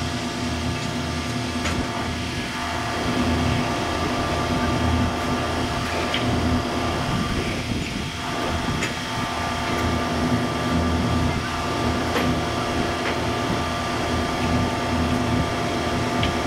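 Diesel engines of a line of railway track-maintenance machines running at idle: a steady mechanical hum with several held tones over a low, pulsing rumble.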